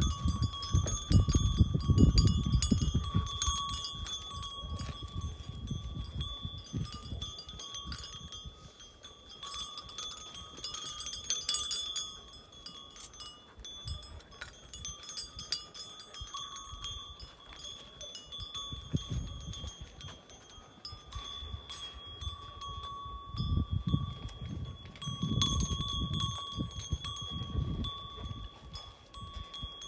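A small brass bell on a Gaddi dog puppy's collar jingles and rings on and off as the puppy moves, with a steady ringing tone and little clinks. Bouts of low rumbling noise come at the start and again in the last third.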